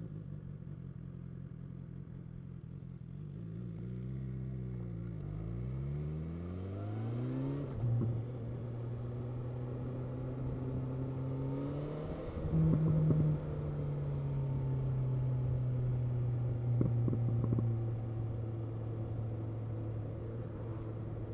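Motorcycle engine running while riding: the revs fall about four seconds in, climb again through the next few seconds as it accelerates, then hold a steady cruise, with a brief rise in pitch about halfway and a few light knocks.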